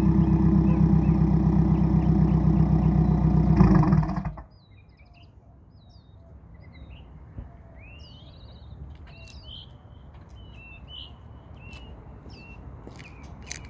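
Subaru WRX's FA20DIT turbocharged flat-four idling steadily through Tomei unequal-length headers, a Cobb catted J-pipe and a Carven cat-back exhaust, heard at the tailpipes, then shut off about four seconds in. Birds chirp after the engine stops.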